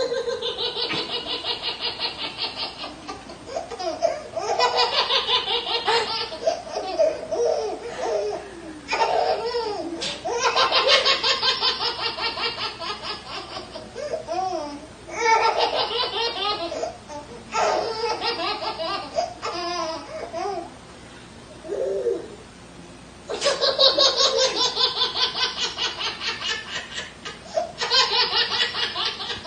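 Long hearty laughter: runs of quick, rhythmic laughs broken by short pauses, with a brief lull about three quarters of the way through.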